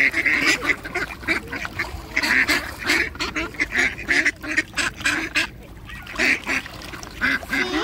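A flock of mallard ducks quacking continually, many short calls overlapping, as they crowd in begging for food, with a brief lull about two-thirds through.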